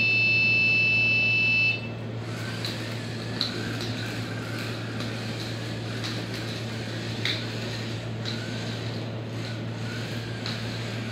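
A steady high electronic beep from a buzzer lasts until nearly two seconds in. After it, the small DC gear motors of an Arduino robot car run with a low hum and a faint wavering whir, and a few light clicks come as it drives about.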